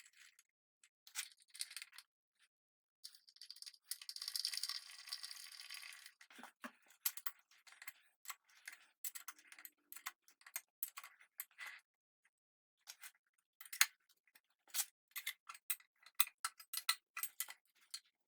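Light metallic clicks and rattles of steel parts and tools being handled, scattered unevenly, with a short stretch of scraping about four seconds in.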